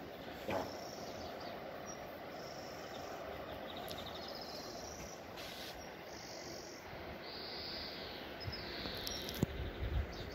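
Outdoor morning ambience: a steady low hiss with faint high chirps and trills now and then. Near the end, a click and a few soft low thumps.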